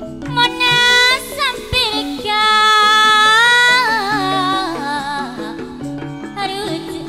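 A woman singing a gending into a microphone over gamelan accompaniment. Her line winds through ornamented phrases, with a long held, wavering note in the middle that then slides down.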